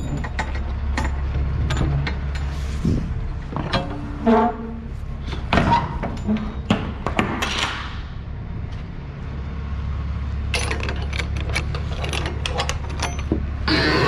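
Semi-trailer rear swing doors being closed and latched: metal clanks and clicks of the door lock bars and handles, with a short squeak about four seconds in, over a steady low hum.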